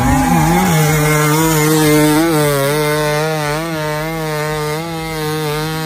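Enduro dirt bike's single-cylinder engine held at high revs as the rear wheel spins in soft sand on a steep climb, its pitch wavering up and down from about two seconds in as the throttle and grip change.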